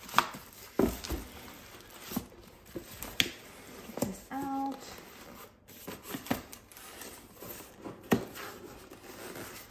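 Cardboard box flaps being opened and handled on a stone countertop, with scattered knocks, taps and rustles of cardboard and foam packing. A short pitched sound comes about halfway through.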